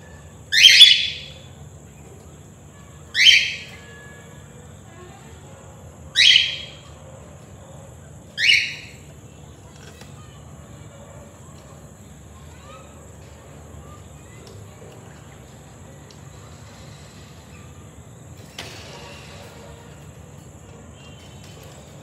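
Cockatiel calling: four loud, shrill calls of about half a second each, spaced two to three seconds apart in the first nine seconds, then quiet.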